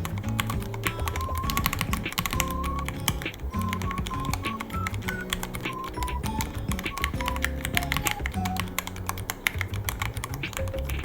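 Fast, irregular typing on a Ducky One 3 mechanical keyboard, a steady stream of key clicks.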